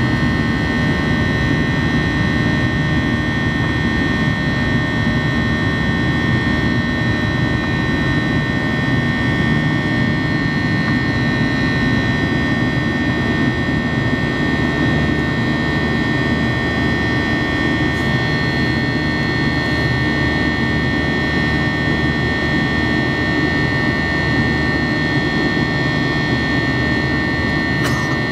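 Cabin noise in a Boeing 737-800 climbing after takeoff: its CFM56-7B turbofan engines running steadily, a low rumble with a high whine held at one pitch.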